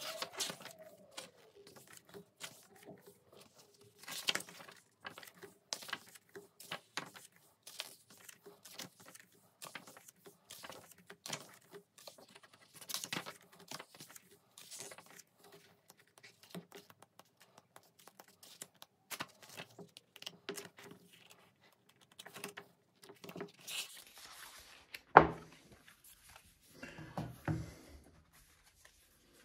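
Pages of a glossy album photobook turned by hand one after another, the paper flicking and rustling. Near the end the book is laid on the desk with one sharp knock, followed by a few softer taps and rustles as the next paper booklet is handled.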